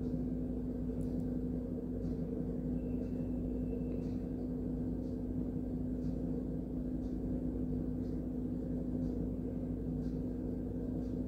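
A steady low hum with faint, widely spaced clinks of a steel spoon scraping a small metal pan as a thin sugar-water tempering with green chillies and curry leaves is stirred.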